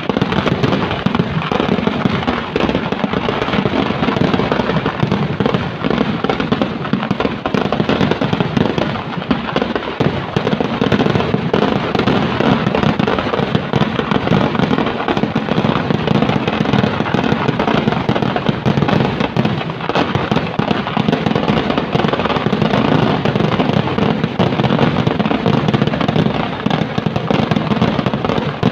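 Kerala temple-festival fireworks (vedikettu) going off in a dense, continuous barrage of bangs with no pause.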